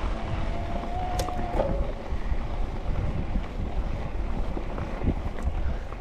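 Wind buffeting the microphone while riding an electric mountain bike, over a steady low rumble. About half a second in, a faint thin tone sounds for roughly a second and drops in pitch as it ends.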